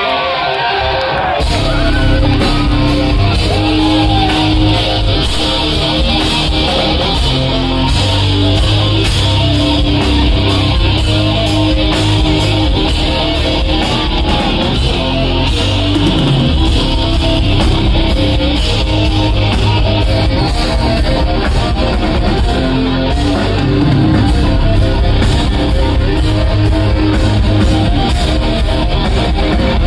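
Live rock band playing loudly: distorted electric guitars, bass guitar and drums. The full band with drums comes in about a second and a half in.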